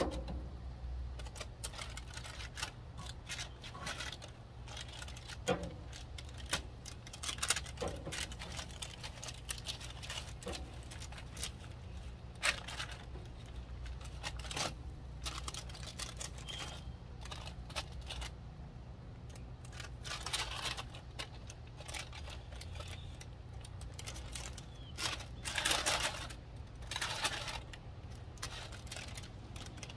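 Kitchen knife blade scraping and tapping across seasoned fish and the paper beneath it, in short, irregular strokes, with louder runs of scraping about twelve seconds in and again around twenty-six seconds.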